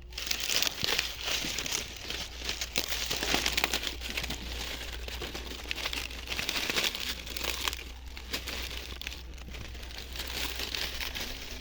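Dry maize leaves and husks crackling and rustling in a dense, irregular stream of small crackles as the plants are worked by hand during harvest.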